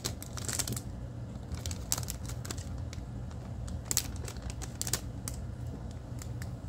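Clear plastic bag of small dice being handled and opened: scattered sharp clicks and rattles of the dice with some plastic crinkling, busiest in the first second.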